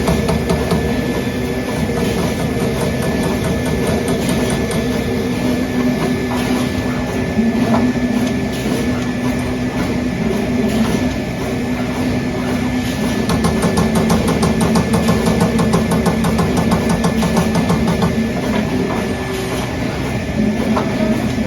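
Trumpf Trumatic 2010R CNC turret punch press running, with a rapid, even train of punching strokes over a steady machine hum and a thin steady tone.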